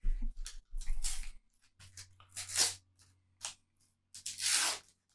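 Panini sticker packet torn open by hand: several short rips of the wrapper, the longest and loudest about four seconds in.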